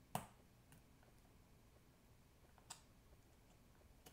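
Small sharp clicks from hands working a small metal ring with a hand craft tool. One loud click comes just after the start and a second about two and a half seconds later, with faint ticks between and a small click near the end.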